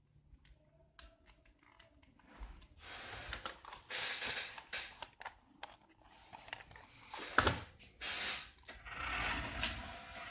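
Toy remote control car running in short spurts: bursts of hissy whirring a second or two long, with one sharp knock about two-thirds of the way in.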